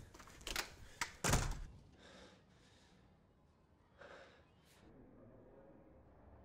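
A few sharp knocks and a heavy thunk about a second in, then a couple of audible breaths, like a gasp or sigh, over quiet room tone.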